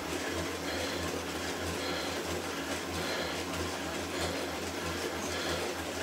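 Stationary exercise bike whirring steadily as someone pedals through an interval effort, with a faint regular pulsing.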